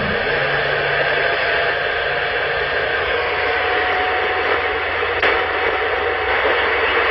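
Superstar 3900EL CB radio receiving open-channel static: a steady hiss of noise from the speaker, with a faint steady whistle in it that fades out near the end.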